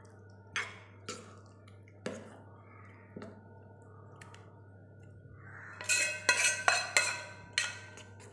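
A spoon stirring beaten egg and vegetables in a bowl, clinking against the bowl's side: a few separate clinks in the first few seconds, then a quick run of clinks about six seconds in.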